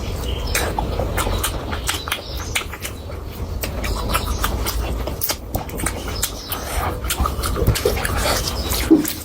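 Close-miked eating sounds: wet chewing and mouth smacks, with a steady run of short, sharp clicks over a low hum.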